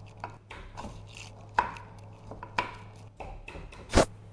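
Kitchen knife slicing a red horn chili on a wooden cutting board: irregular knocks of the blade on the board, with sharper, louder strikes about a second and a half in, two and a half seconds in, and near the end.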